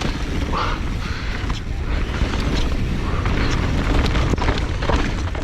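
Mountain bike riding down a rough trail, heard through a GoPro mounted under a helmet chin bar: wind buffeting the microphone in a steady low rumble, with tyre noise and the clatter of the bike over the ground, and a few sharp knocks about four seconds in.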